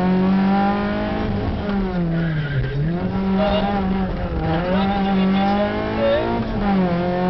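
Rally car engine heard from inside the cockpit, held at high revs on a stage run. The pitch drops sharply about two and a half seconds in as the driver lifts and brakes, then climbs back, with a shorter dip near the end.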